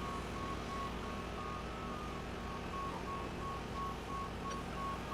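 Warning beeper on heavy construction machinery sounding rapid, evenly spaced beeps that alternate between two close pitches, over the low, steady hum of a running engine.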